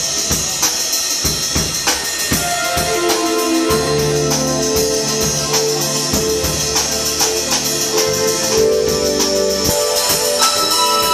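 Live rock/pop band playing an instrumental passage: a drum kit keeps a steady beat with hi-hat and cymbal strokes, and held chords with bass notes come in about three seconds in.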